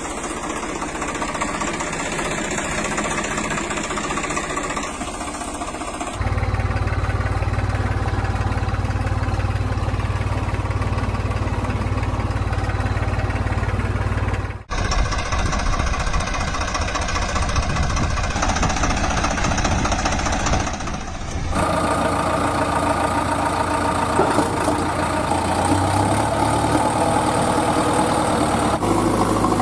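Tractor engine running at idle, in sections that switch abruptly about 6, 15 and 22 seconds in. From about 6 seconds there is a strong low hum, and there is a brief drop in level at the cut near 15 seconds.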